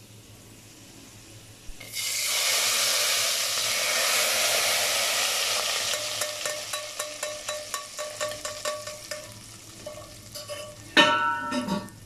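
Hot garlic-fried oil (tadka) hitting cooked lentil daal, which bursts into a loud sizzle about two seconds in and dies down gradually. A run of light clicks follows, and near the end comes a sharp ringing clank of metal utensils.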